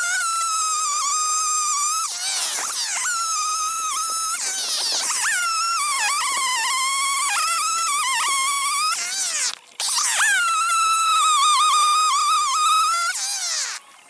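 Homelite XL two-stroke chainsaw cutting through logs, sped up with the time-lapse so it sounds as a high, buzzing whine. The pitch dips and wavers as the chain bites into the wood and jumps up between cuts, with a brief break a little under ten seconds in.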